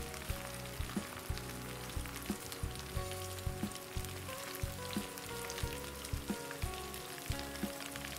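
Battered chicken pieces deep-frying in hot oil, the oil sizzling with a steady hiss and many sharp crackling pops. This is the short second fry of a double fry that makes the coating crisp.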